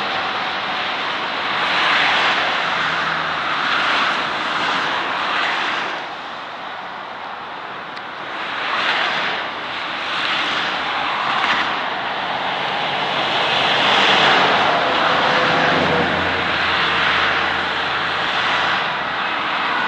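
Motorway traffic: tyre and engine noise of cars and trucks passing below, a steady noise that swells and fades as each vehicle goes by.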